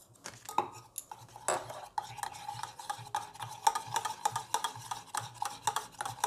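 Metal spoon stirring milk and powdered milk in a stainless-steel tumbler: quick, irregular clinks and scrapes against the glass's sides. A thin steady tone sounds under the clinks from about a second and a half in.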